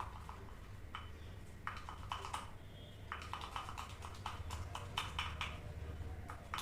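Hair-dye brush stirring colour cream and developer in a bowl: quick runs of clicking taps and scrapes against the bowl, thickest from about a second and a half in.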